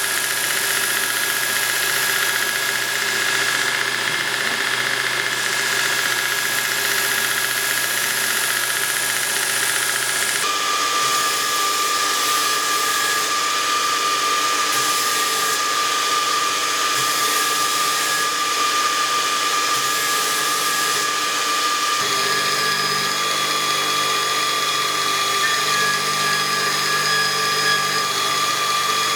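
Steady hum of a motor-driven workshop machine with a constant whine. The pitch and character change abruptly twice, about ten and about twenty-two seconds in.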